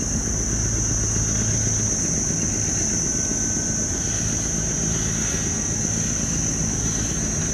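Diesel engine of a large steel dry-cargo barge passing close by, a steady low drone. A constant high-pitched insect buzz runs over it.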